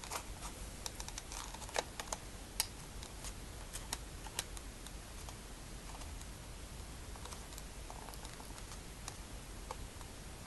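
Faint scattered clicks and taps of a diecast car's box being handled and opened, most of them in the first few seconds.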